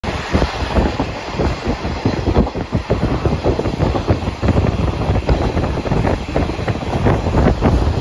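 Open-air train car running along the track: a steady rumble and rattle of wheels on rails, with wind buffeting the microphone in heavy, uneven gusts.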